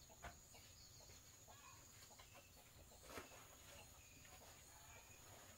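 Near silence, with faint chicken calls in the background and two soft clicks, one just after the start and one about three seconds in.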